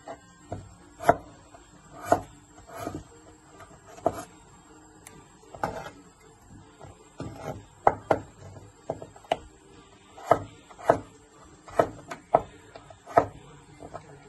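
Chinese cleaver slicing a potato on a wooden cutting board: sharp knocks of the blade on the board, about one a second at an uneven pace.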